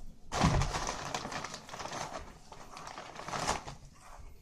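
A thump, then a few seconds of crinkling and rustling from a plastic pita chip bag being moved, fading out near the end.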